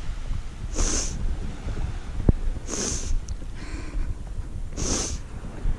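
A person's breathing close to the microphone: a short, hissing breath about every two seconds. Under it is a low rumble of wind on the microphone, and there is one sharp click a little past two seconds in.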